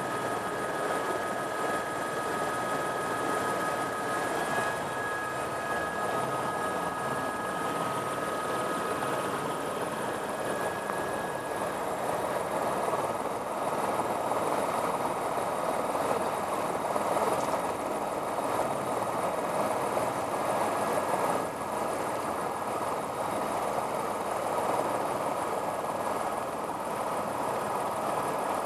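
Helicopter running steadily, heard from inside the cabin: a continuous rushing engine and rotor noise. In the first several seconds there are two steady high whining tones, which then fade out.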